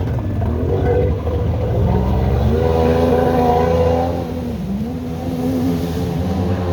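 Jet ski engine revving, its pitch climbing about two and a half seconds in, dropping briefly near the middle, then rising again.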